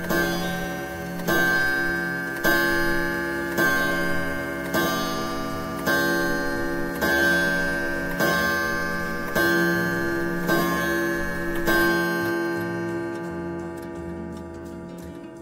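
A clock striking midnight: ringing chime strokes about one a second, each left to ring on. The ringing fades away after the last stroke, near twelve seconds in.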